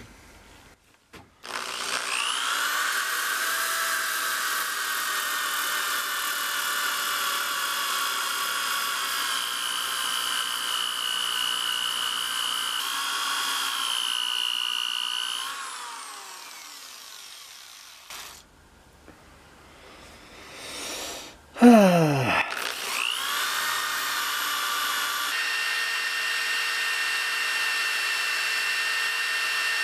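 DeWalt random orbital sander running with a coarse, roughly 100-grit disc against the steel of a hatchet head, grinding out rust pitting: a steady high whine. It spins up, runs for about fourteen seconds, winds down, and after a short pause with a knock spins up and runs again.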